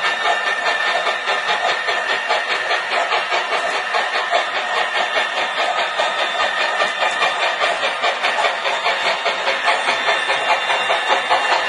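Model steam locomotive and coaches running past on the layout track: a steady whine with rapid, rhythmic clicking of the wheels over the rails.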